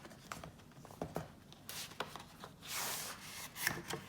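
A cardboard product box being handled and opened: cardboard and paper rubbing and sliding, with a few light taps. There are two longer swishes, the longer one about three seconds in.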